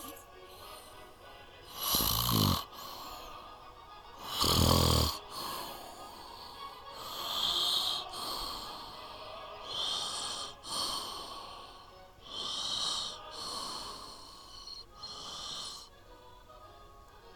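Snoring: two loud, low snores about two and four and a half seconds in, then a run of shorter, higher breathy snores every two to three seconds.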